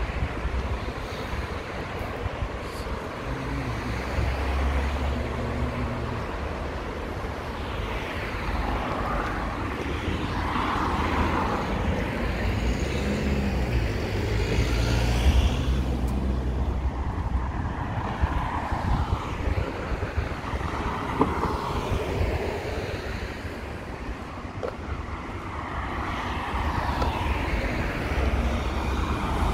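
Town street ambience: vehicles passing one after another, each swelling and fading, over a steady low rumble.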